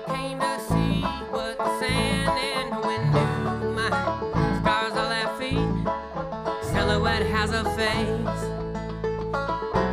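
Live bluegrass-style string band playing a song, with a banjo picking prominently over sustained low notes.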